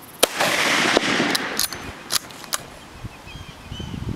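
A single rifle shot from a Mosin-Nagant M91/30, a bolt-action in 7.62×54R, about a quarter second in. Its echo rolls on for about a second. A few sharp clicks follow.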